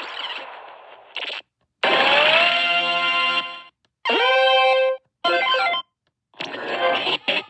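Electronic sound effects and short jingles from a Bullseye Ball / Target Master target game's sound chip, played one after another in its sound test. A fading tone and a short blip come first, then several separate beeping jingles with silent gaps between them. Some of the jingles open with a rising swoop.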